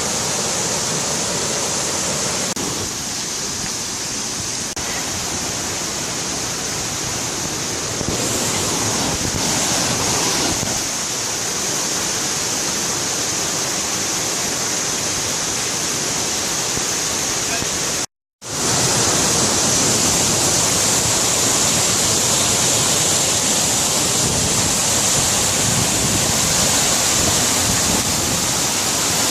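Waterfall rushing, a steady, dense hiss of falling water, broken once by a brief dropout about two-thirds of the way through.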